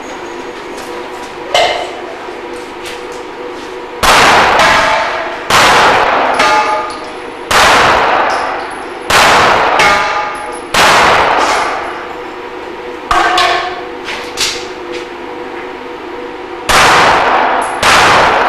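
Pistol shots fired a second or two apart at steel targets, with the struck steel plates ringing out in clear metallic tones after hits. The firing pauses for several seconds near the middle before the last two shots.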